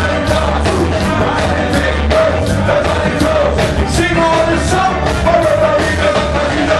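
Live ska band playing with a man singing lead into a microphone over electric guitar, keyboard and a steady drum beat.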